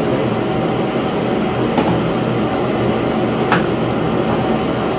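Propane heater running with a steady roar, with a sharp click about three and a half seconds in.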